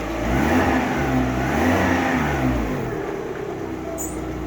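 Lada Priora petrol engine revved twice, rising and falling in pitch, then settling back to a steady idle. It runs smoothly, with no hydraulic lifter knock, which the owner puts down to flushing out the oil channels and changing the oil.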